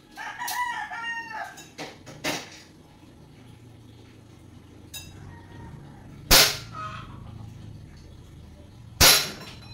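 Two sharp shots from a 9mm-style airsoft pistol firing plastic BBs, about three seconds apart in the second half. A rooster crows near the start, and a few light clicks come before the shots.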